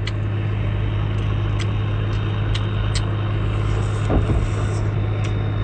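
A steady low engine-like drone, with scattered faint clicks of chewing as octopus is eaten and a short 'mm' from the eater about four seconds in.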